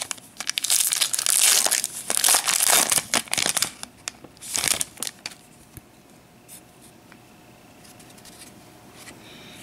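Foil trading-card pack wrapper crinkling and tearing as it is pulled open, in a dense run over the first four seconds, with one more brief crinkle about a second later.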